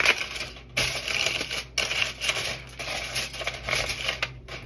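Aluminium foil crinkling and crackling as it is handled and pulled over a baking pan, with a few brief breaks.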